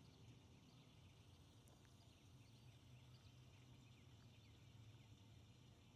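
Near silence: a faint steady low hum with many faint, short, high chirps scattered throughout.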